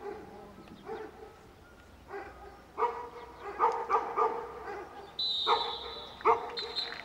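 A dog barking repeatedly in short, sharp barks that get louder and closer together partway through. A high, steady whistle sounds for about a second just after the five-second mark and briefly again near the end.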